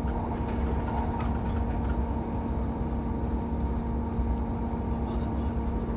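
Running noise inside a moving passenger train carriage: a steady low rumble with a constant hum over it. A few faint clicks come through now and then.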